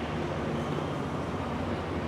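Steady city street traffic noise: cars and other vehicles running and passing, with a low engine hum under an even wash of road noise.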